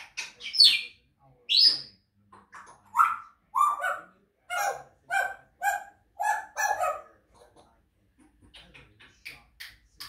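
African grey parrots whistling and chattering: two quick rising whistles in the first two seconds, then a run of short squawky calls, about two a second, and a few soft clicks near the end.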